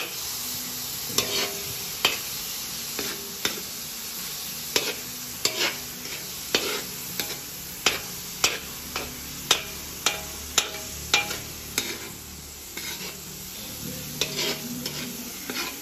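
Ground pork with onion and garlic sizzling in oil in a wide metal kawa (wok), while a metal spatula scrapes and clacks against the pan about twice a second; the strokes pause briefly about three quarters of the way through, leaving only the sizzle, then resume.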